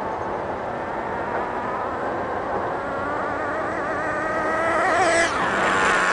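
HPI MT2 nitro RC monster truck's small two-stroke glow engine held at high revs, its whine climbing in pitch and growing louder as the truck approaches. It drops sharply in pitch about five seconds in as the truck passes close by.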